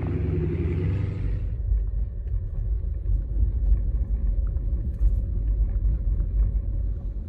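Deep, uneven rumble of a car driving along a road. It takes over about a second and a half in from a lighter outdoor hiss.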